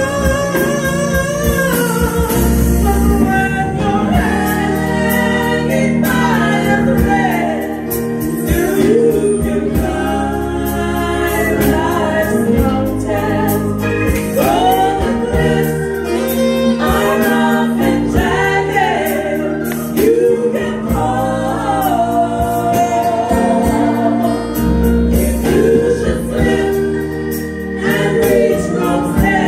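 Female vocal trio singing a gospel song into microphones, several voices in harmony over a steady instrumental accompaniment.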